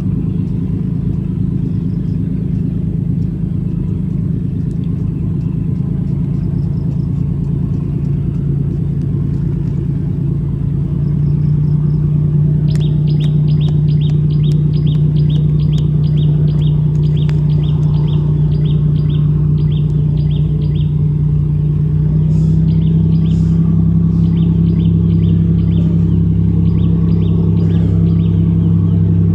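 High-speed passenger ferry's engines running with a steady low drone as it passes, growing louder about a third of the way in and shifting slightly higher in pitch later. From a little before the middle, a bird chirps over it, about three short calls a second.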